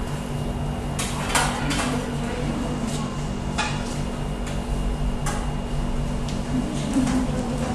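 Scattered sharp clinks and knocks of hard objects being handled, about six in all, over a steady low hum.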